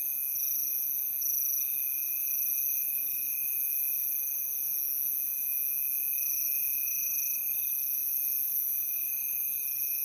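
Steady insect chorus: a constant high-pitched drone with a higher, pulsing trill over it.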